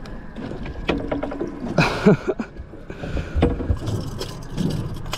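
A mackerel tuna being lifted aboard and handled on an inflatable boat's deck: a string of separate knocks and clatters as the fish hits and kicks on the mat and is unhooked, the loudest about two seconds in.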